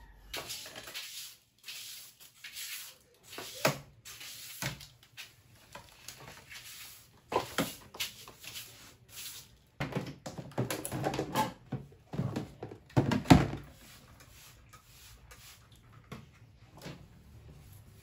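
A hand trigger spray bottle hissing in a series of short squirts against glass louvres. After that comes a stretch of clatter and knocks from plastic storage drawers being slid out and handled, with one sharp knock louder than the rest.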